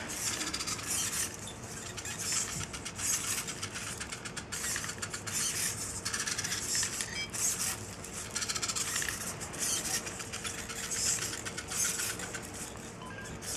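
A small four-legged robot dog's hobby servo motors whirring and buzzing as it walks, rising in repeated bursts every second or two over a fine fast ticking from the gears.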